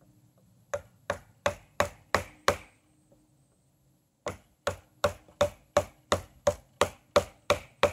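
Buck 119 hunting knife chopping into the base of a standing sapling, blade biting into wood: a run of six quick strikes, a short pause, then about eleven more at about three a second.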